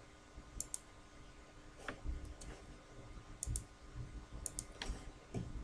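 Faint computer mouse clicks, several short sharp clicks, some in quick pairs, with a few soft low thuds, against quiet room tone.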